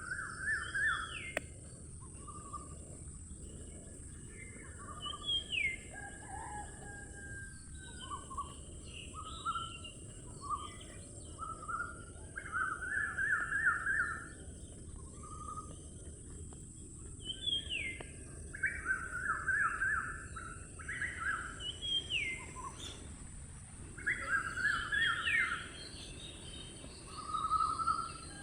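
Several wild songbirds singing and calling: repeated short trilled phrases and quick downward-sliding whistles, over a steady high hiss.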